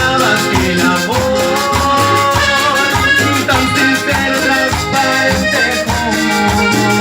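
Live cumbia band playing an instrumental passage: melodic lines over a steady beat with bass and shaker.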